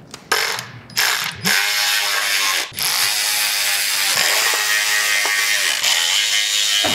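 Ratchet wrench clicking rapidly: two short runs, then one long continuous run with a single brief break.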